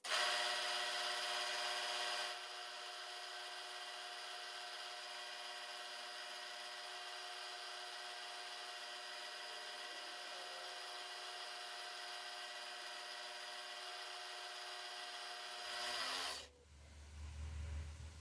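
Mini milling machine spindle running with an end mill taking a light clean-up cut, a couple of thousandths, off the face of a small brass part. It is a steady whine made of many tones, louder for the first two seconds and again just before it stops about sixteen seconds in. A faint low rumble follows near the end.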